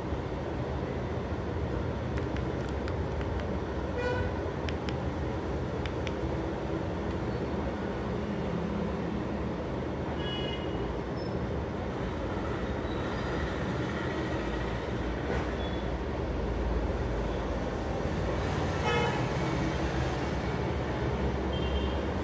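Steady low background rumble, with a few short pitched toots about four, ten and nineteen seconds in.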